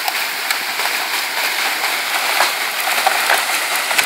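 Heavy rain and hail pouring down: a steady hiss broken by scattered sharp ticks of impacts.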